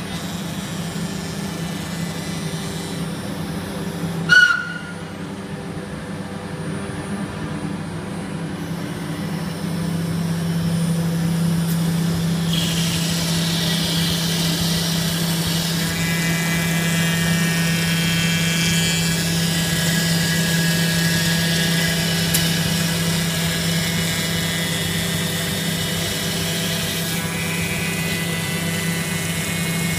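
CNC router spindle running steadily as it machines a fibreglass-skinned foam composite panel on a clean-up pass, taking the foam layer down to the glass skin. A sharp click about four seconds in, and the cutting hiss grows louder after about ten seconds.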